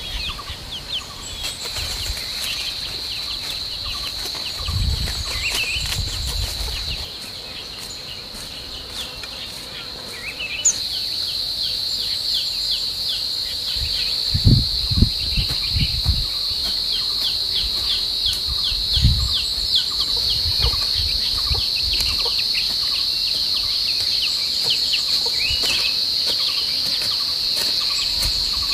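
Insects shrilling steadily at one high pitch, louder from about ten seconds in. A few dull thuds of a hoe chopping into soft soil come about five, fifteen and nineteen seconds in.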